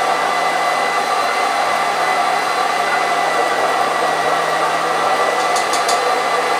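Electric blender motor running steadily at speed, with a constant hum, pureeing raw duck liver mixture while melted butter is added slowly so that it emulsifies.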